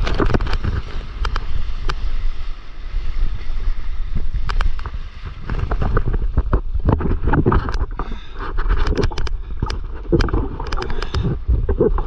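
Low rumbling wind buffeting the microphone of a camera held just above the sea, with water splashing against it in many sharp clicks and short splashes, more of them in the second half.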